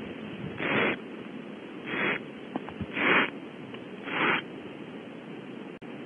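Barn owl owlets' food-begging hisses: four short hisses about a second apart, over a steady background hiss.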